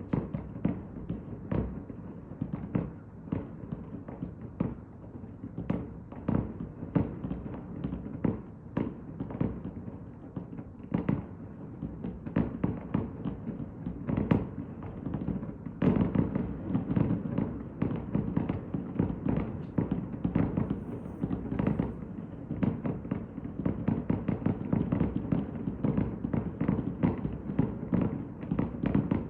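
Fireworks display: a continuous run of sharp bangs, which grows denser and louder a little past halfway through.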